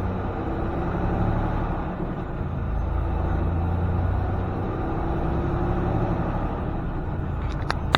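Semi-truck's diesel engine running steadily, heard from inside the cab while driving. There are a few sharp clicks just before the end.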